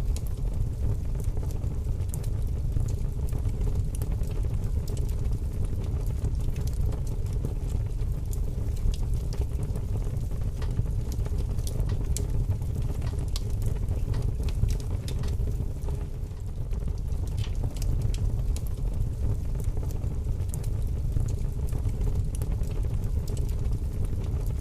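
A large fire burning: a steady low rumble of flames with scattered sharp crackles and pops throughout.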